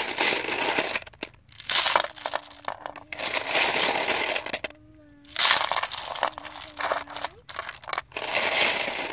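Handfuls of live snails poured into a metal pan lined with leaves. Their shells clatter against each other and the pan in repeated bursts, about one every two seconds.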